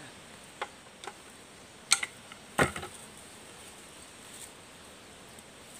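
A few sharp knocks and clicks, the loudest a heavier knock with a dull thud about two and a half seconds in, over a faint hiss.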